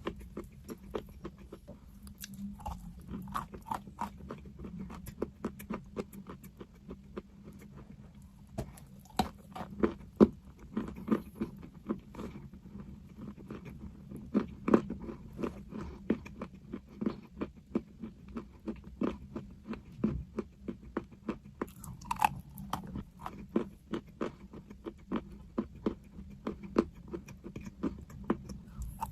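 Crunchy chalk being bitten and chewed: a quick, irregular run of sharp crunches and clicks.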